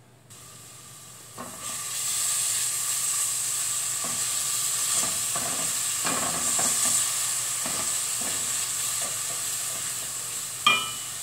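Blended onion and minced garlic sizzling in hot oil while a silicone spatula stirs them round the pot, the sizzle swelling over the first two seconds and then running steadily, with the scrapes of the stirring strokes in it. Near the end a single sharp knock with a brief metallic ring.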